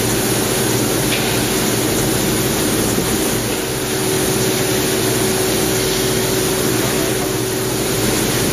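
Quick Jet AV-2516 CNC machining center finish-milling with a 6 mm cutter at 8000 rpm: a steady hiss of spindle and cutting with a steady whine held under it.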